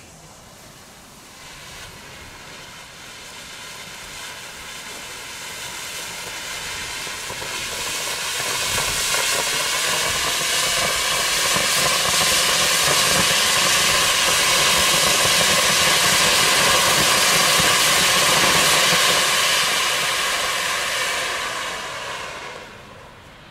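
Ground fountain firework spraying sparks, a rushing hiss that builds over the first eight seconds or so, holds loud and steady, then dies away near the end as the fountain burns out.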